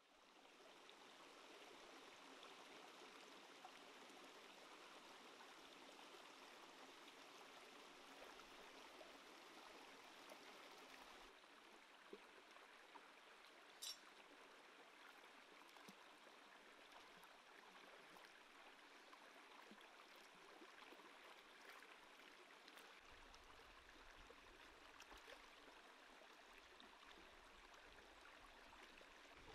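Faint, steady rush of a shallow rocky stream running over stones, with a single sharp click about fourteen seconds in.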